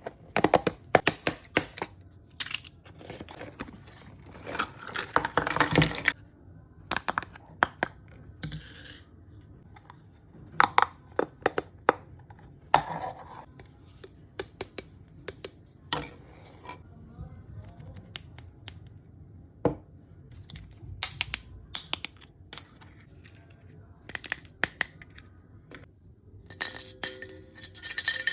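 Small plastic miniature toy kitchen pieces being unboxed and handled: scattered clicks, taps and light clinks, with a stretch of packaging rustling about four to six seconds in.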